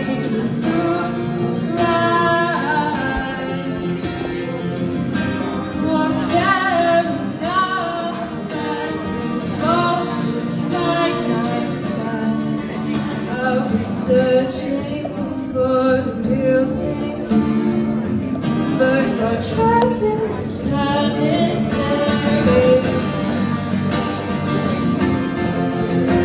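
Live song: a woman singing a melody over acoustic guitar accompaniment.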